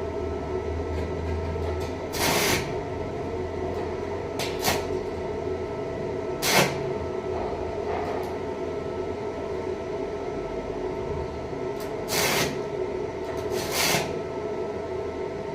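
A steady machine hum holding several fixed tones, broken five times by short bursts of hissing, crackling noise.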